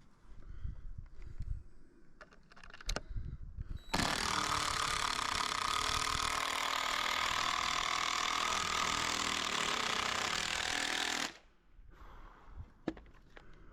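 A handheld power tool runs steadily for about seven seconds, starting and stopping abruptly, with a few knocks before it.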